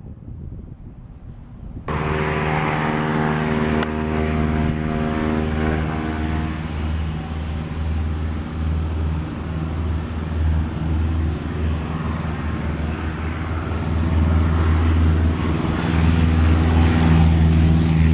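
Light wind on the microphone, then, after a cut, a Cessna 152's four-cylinder piston engine and propeller running at takeoff power on the takeoff roll. It is a steady drone that grows louder as the plane rolls closer.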